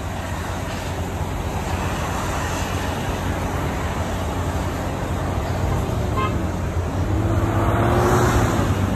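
Four-wheel-drive vehicles, a Mitsubishi pickup among them, running hard under load as they push through deep snow, with a steady engine hum and the rush of tyres spinning and throwing snow. The sound grows louder toward the end, with a faint rising tone in the last two seconds.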